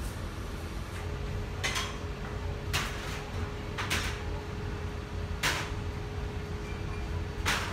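Restaurant room noise: a low steady rumble and a faint hum, with five sharp clinks or knocks a second or two apart, the last the loudest.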